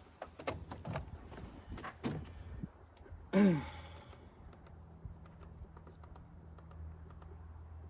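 Scattered light clicks and knocks of handling, then a loud, short vocal sound falling in pitch about three and a half seconds in. After it come insects chirping in short high trills about once a second over a low steady hum.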